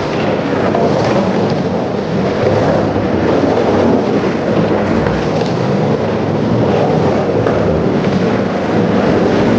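Skateboard wheels rolling over a birch wooden bowl, a loud continuous rumble.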